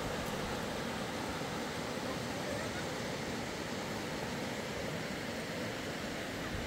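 Steady rushing of a fast-flowing mountain river over rocks.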